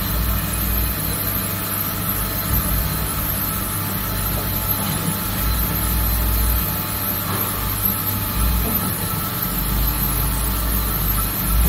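Pegas Gonda 510 Top Speed band saw running: a steady mechanical hum with a high hiss and an uneven low rumble.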